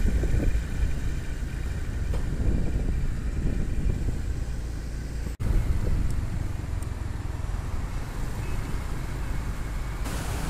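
Honda motor scooter running while being ridden, with a steady low rumble of wind and road noise on the microphone. The sound breaks off for an instant about five seconds in, then a similar steady rumble carries on.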